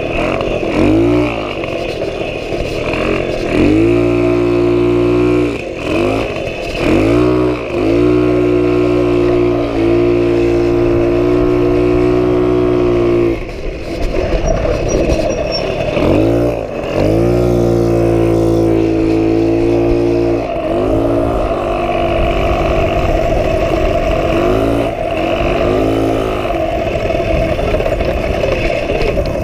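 1977 Puch Pinto moped's two-stroke single-cylinder engine under way, its pitch climbing as the throttle opens, holding steady for several seconds at a time and dropping back, over and over.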